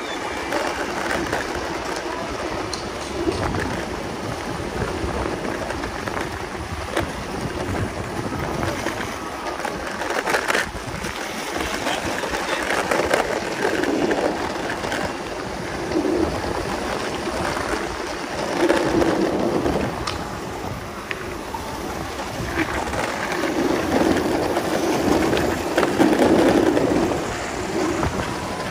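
Skateboard wheels rolling over city pavement: a continuous rumble and hiss, with occasional sharp clacks as the board runs over cracks and bumps.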